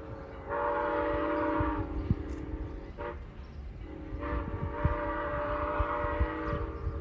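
Train horn sounding two long blasts, each holding several notes at once, over a low rumbling with scattered thumps.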